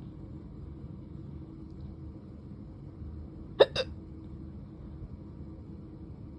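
A person hiccuping: one sharp hiccup about three and a half seconds in, followed a moment later by a second, softer one.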